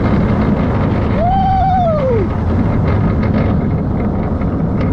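Roller coaster train running along its track with steady wind rush over the microphone, and a rider's single rising-and-falling "whoo" about a second in.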